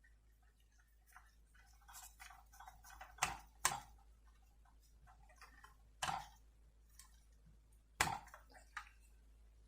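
Light irregular clicks and taps of small screws and a screwdriver against a diecast model car's base as it is screwed back together, with four sharper clicks spread through.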